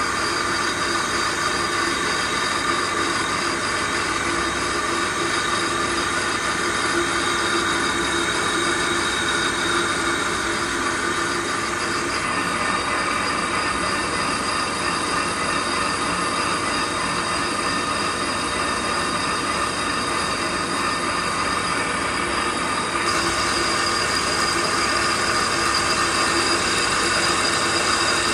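Metal lathe running, with a steady metallic squeal of the cutting tool on the turning workpiece; the high part of the sound shifts a little about twelve seconds in and again near the end.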